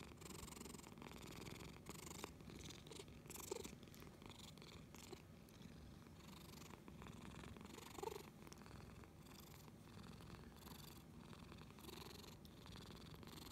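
A tabby-and-white domestic cat purring steadily while being stroked on the head. Two short, louder higher-pitched sounds break in, about three and a half and eight seconds in.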